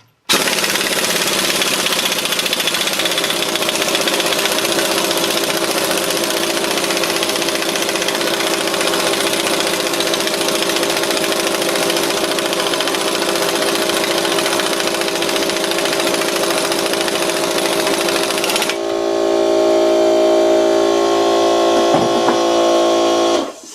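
Impact wrench hammering without a break as it drives the forcing screw of a ball joint press against a rusty ball joint, pressing it out. About 19 seconds in the sound turns louder and steadier with a clearer pitch, then stops suddenly near the end.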